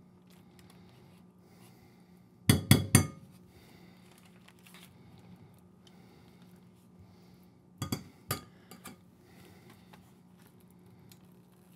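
Metal spoon clinking against a bowl, three or four quick strikes about two and a half seconds in and two or three more near eight seconds, as scooped baked butternut squash is knocked off the spoon. Faint scraping of the spoon through the soft squash in between.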